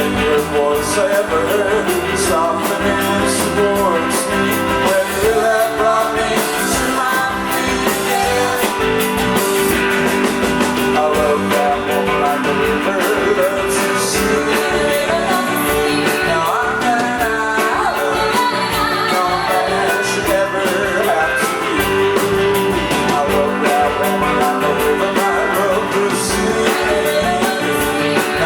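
Rock band playing live, with electric guitars, drums and a sung vocal line.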